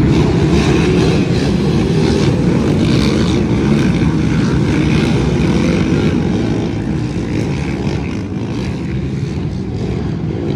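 Engines of several racing ATVs (quads) running together in a continuous drone. The sound drops somewhat in level after about seven seconds as the machines move away.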